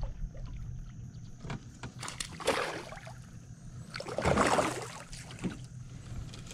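Two brief splashing rushes of water, about two and four seconds in, as a hooked shellcracker (redear sunfish) is pulled up to a small boat, over a low steady hum.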